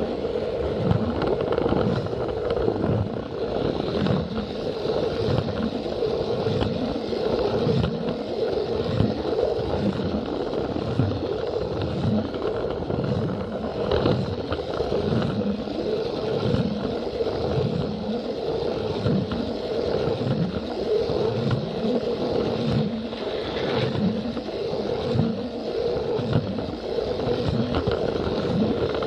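Battery-powered Plarail toy train running along plastic track: a steady motor hum, with the wheels giving a low rumble that repeats about once a second.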